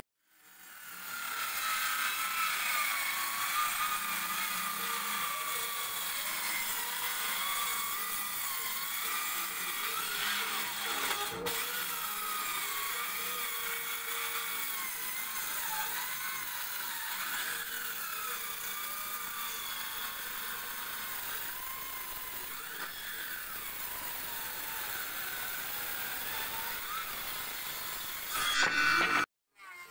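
Maktec handheld circular saw cutting lengthwise along a wooden plank. Its high motor whine wavers up and down in pitch as the blade goes through the wood.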